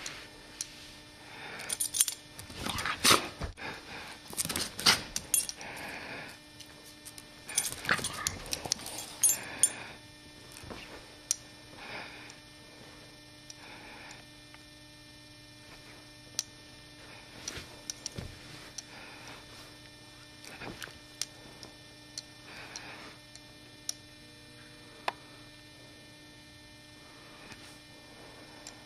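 Small dog moving about close up: scattered rustles and clicks, busiest in the first ten seconds and sparse after, over a steady electrical hum.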